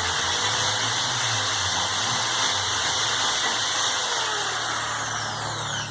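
Electric drill with a large wood bit grinding burrs off the inside edge of a thick bamboo tube: a loud, steady rasping whir, very noisy, with the motor's pitch falling away near the end as it is released.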